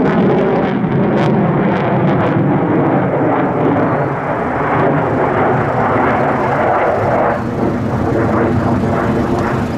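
Twin General Electric F404 turbofan engines of an F/A-18C Hornet fighter jet, running loud as it manoeuvres overhead: a dense, steady jet noise that dips slightly about four seconds in.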